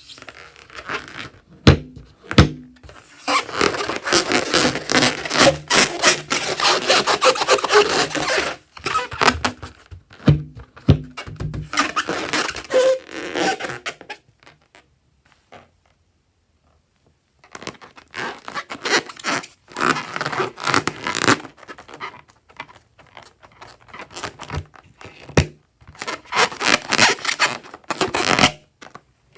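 Slime being handled and mixed, a dense sticky crackling and scraping in long bursts with a few dull thunks, stopping for a few seconds midway.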